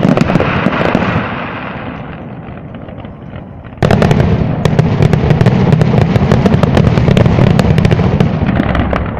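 Fireworks display: a dense barrage of rapid bangs and crackling that dies away, then a second loud barrage of rapid bangs breaks out suddenly about four seconds in and begins to fade near the end.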